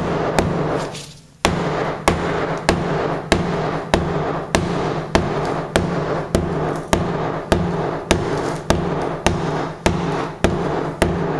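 Rock hammer striking a cracked ceramic floor tile in steady blows, nearly two a second, with a short pause about a second in. Each blow rings briefly. The tile is being broken up to loosen it from the mastic underneath.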